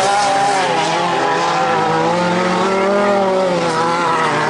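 Several dirt-track stock car engines running hard together, their pitch rising and falling as the drivers work the throttle.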